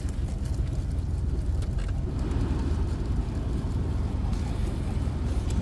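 Steady low rumble of background machinery or traffic, with a few faint clicks in the first two seconds.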